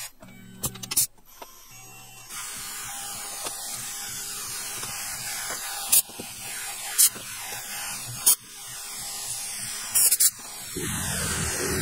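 Tormach PCNC 1100 CNC mill drilling into a die block with a thin bit: a steady spindle and cutting hiss, broken by a few sharp clicks. A lower hum comes in near the end.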